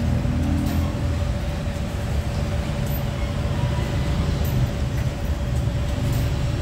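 Street traffic rumbling, motorbikes and cars passing, with a constant steady hum underneath.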